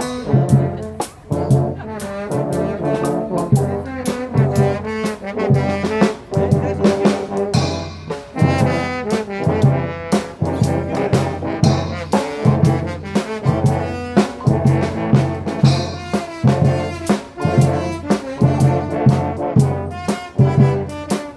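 Street brass band playing together: trombones and trumpets over a repeating low bass line, with drums keeping a steady beat.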